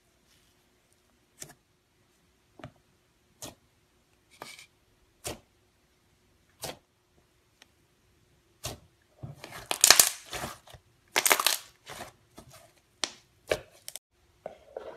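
Slime being pressed and worked by hand, letting off sharp single pops of trapped air about once a second, then a loud, dense run of crackling pops about two-thirds of the way through.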